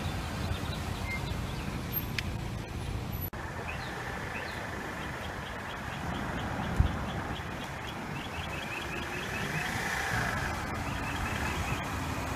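Car on the move: steady engine and road noise, briefly cut off just after three seconds. A faint quick ticking at about four a second runs through the middle, and there is a single thump about seven seconds in.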